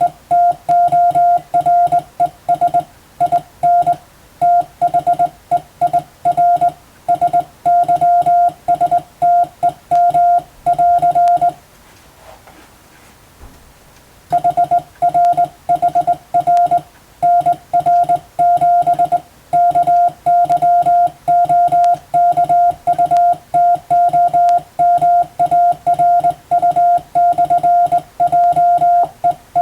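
Morse code keyed as sending practice: a single steady beep tone switched on and off in dots and dashes at a brisk speed. About twelve seconds in the keying stops for roughly two and a half seconds, then resumes.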